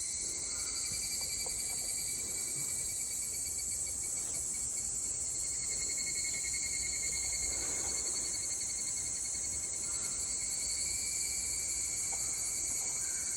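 Chorus of higurashi (evening cicadas, Tanna japonensis), a steady high-pitched shrilling with a fine, fast pulsing that carries on without a break.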